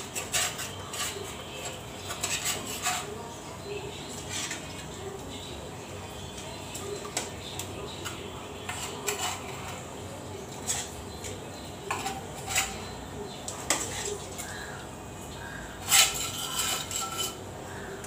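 Metal spatula and frying pan clinking and scraping against a metal cooking pot as fried koi fish are slid into the curry gravy and moved about, in scattered short knocks, the loudest about 16 seconds in.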